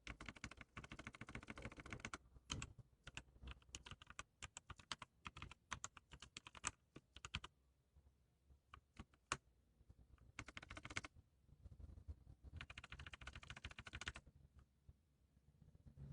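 Typing on a Z-88 backlit computer keyboard: a fast flurry of keystrokes, then separate key taps spread over several seconds, then two more quick flurries near the end with short pauses between.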